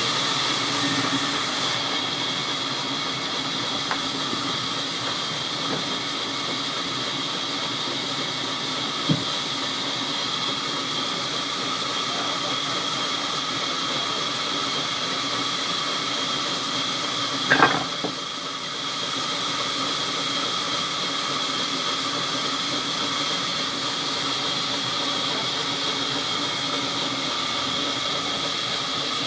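Sawmill machinery running with a steady hiss and whine. A sharp knock comes about a third of the way in, and a short clatter of knocks just past halfway.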